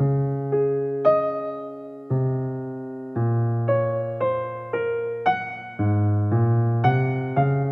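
Background music: a keyboard, piano or electric piano, playing a gentle melody of struck notes and chords, a new note about every half second, each fading after it is struck.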